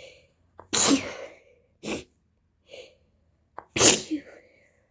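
A woman with a head cold sneezing twice, loud and sudden, about three seconds apart, with shorter quieter sounds between the sneezes.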